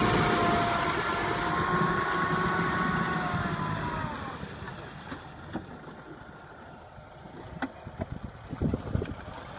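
Engine running steadily, its note sagging slightly and fading away about four seconds in; afterwards only faint scattered knocks and clicks, growing more frequent near the end.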